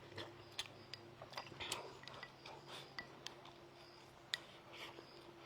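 Faint, scattered light clicks and taps of chopsticks against a bowl while eating rice mixed with fermented tofu, with brief soft rustles in between, over a faint steady hum.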